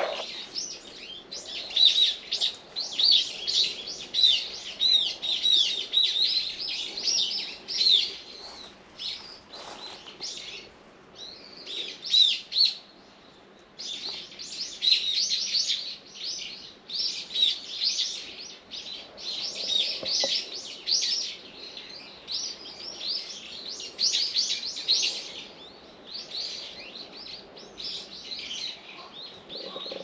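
Small birds chirping: a dense, almost unbroken stream of short, high, quick chirps, with a pause of about a second a little before halfway.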